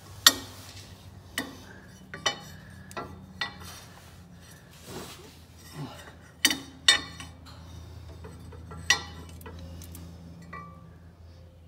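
Sharp metallic clinks of a ratchet, socket and bolts against the steel pedal return bracket and transmission housing as the bracket is bolted up under a compact tractor. About eight separate clinks, the loudest just after the start and two close together around six and a half seconds in. A steady low hum runs underneath.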